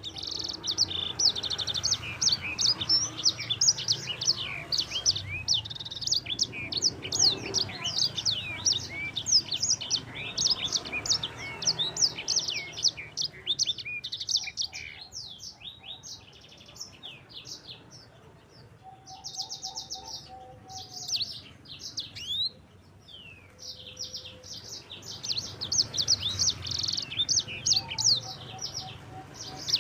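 Yellow-fronted canary (Mozambique singer finch) singing a long, fast, chattering song of rapid chirps and trills. The song thins out for a few seconds in the middle and then picks up again.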